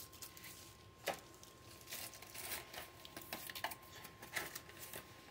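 Plastic parts bag being handled, faint crinkling and rustling with a few light clicks, one sharper click about a second in.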